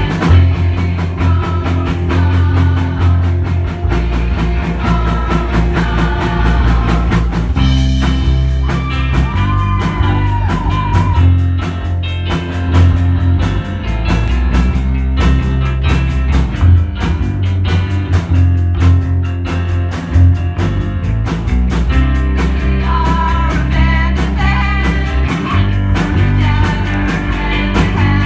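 Live rock band playing with electric guitar, bass and drums, and voices singing.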